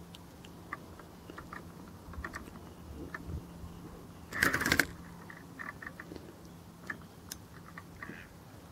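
Irregular light clicks and taps from a fishing reel and tackle as a carp is played, with one louder rattling burst about four and a half seconds in.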